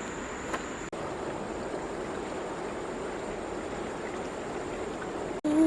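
Running water, a steady rushing hiss with a thin, high, steady tone over it; it breaks off for an instant about a second in.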